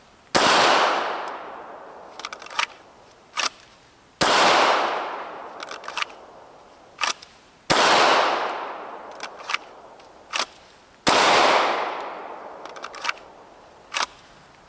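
Four single pistol shots, about three and a half seconds apart, each going off suddenly and ringing out for two to three seconds as it fades. A few small sharp clicks fall between the shots.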